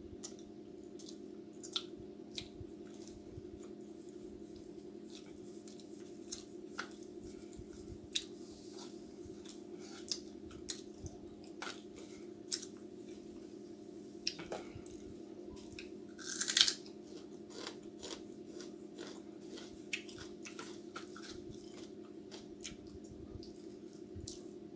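A person chewing and biting into a fried chicken samosa: wet mouth noises with scattered crisp clicks and one louder noise about two-thirds of the way through, over a steady low hum.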